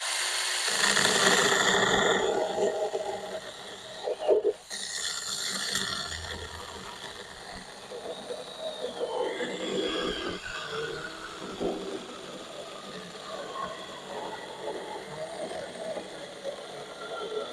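Saker 4-inch 20-volt cordless electric mini chainsaw cutting through a wooden 4x4 post: the motor whines as the chain chews into the wood, its pitch sagging and recovering as it bogs under load, with a brief break about four and a half seconds in.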